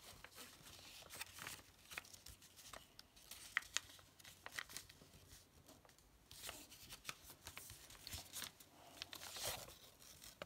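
Sheet of A4 paper being folded and creased by hand: faint rustling and crinkling with scattered small crackles as the fold is pressed flat.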